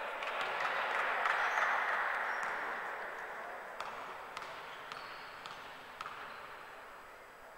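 Crowd noise in the gym swells and then fades away over several seconds. From about the middle on come a few evenly spaced basketball bounces on the hardwood floor, a player dribbling before a free throw.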